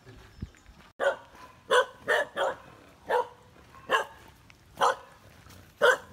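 Village dogs barking, about eight sharp barks spaced half a second to a second apart, starting about a second in.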